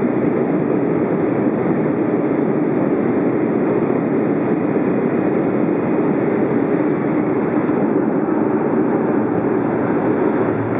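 Steady rumble inside the cabin of a Boeing 757 just after landing, engine and roll noise of the airliner slowing down.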